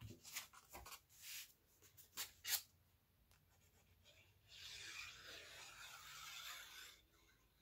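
Cardstock paper being handled on a table: a few light rustles and taps, then a few seconds of paper sliding and rubbing against paper, all faint.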